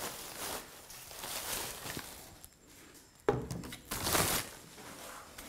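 White plastic wrapping rustling and crinkling as it is pulled off a camcorder. It turns quiet briefly, then comes back sharply louder about three seconds in.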